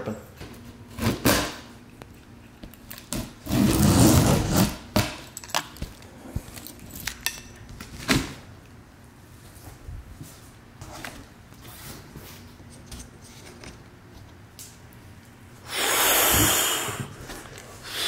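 A large cardboard box being handled and turned over on a concrete floor: scattered knocks and thumps, with two longer scraping rustles, one about four seconds in and one near the end.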